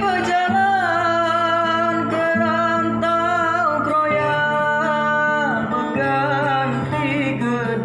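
Singing in a Batang Hari Sembilan folk song, the voice holding long, wavering notes over a plucked acoustic guitar.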